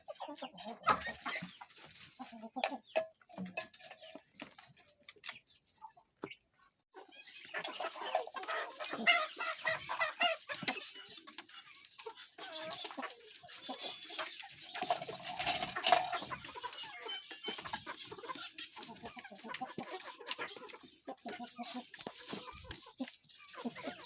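Penned pheasants clucking and calling over one another, sparse at first, then after a brief lull a dense chorus of many birds.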